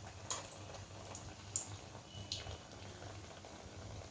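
Sweet appam batter deep-frying in hot oil: a faint sizzle with scattered small pops and crackles.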